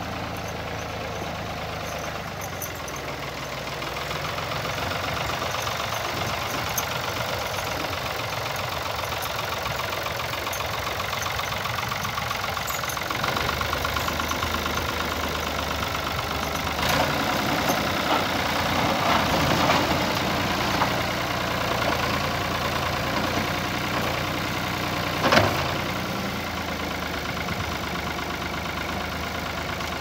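Ford 4500D backhoe's engine running and pulling harder as the tractor drives and works its front loader into a dirt pile, louder in the middle stretch. A single sharp clank comes about 25 seconds in.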